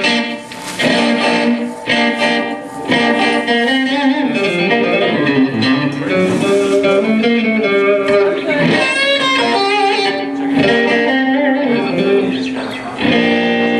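Electric guitar played without accompaniment, sounding check notes and short phrases with held notes, some bent and wavering in pitch.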